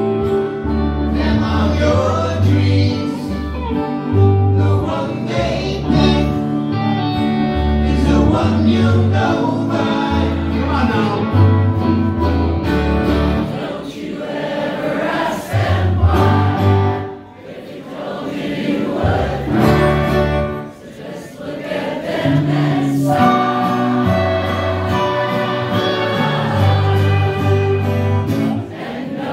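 A live band playing a folk-rock song on keyboard and guitar over steady low notes, with several voices singing together. The sound dips briefly twice in the middle.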